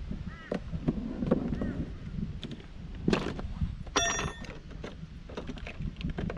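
A plastic toolbox opened and rummaged through by hand: scattered clicks and knocks, with a metallic clink that rings briefly about four seconds in. A bird calls a few times near the start.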